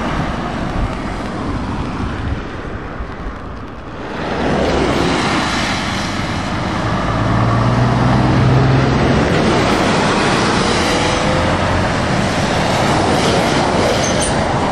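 Lorries driving past on a wet road: the hiss of tyres on wet tarmac, with the steady note of heavy diesel engines. Near the middle a Scania tractor unit's engine comes up as it approaches.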